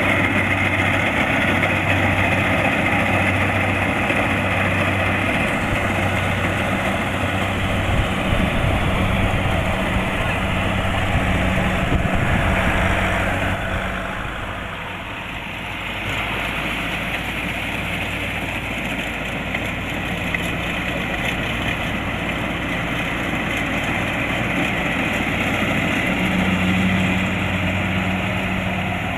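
Kubota DC-70 Plus rice combine harvester running steadily under its diesel engine, with the clatter of its harvesting machinery. The sound eases off for a couple of seconds about halfway through, then picks back up.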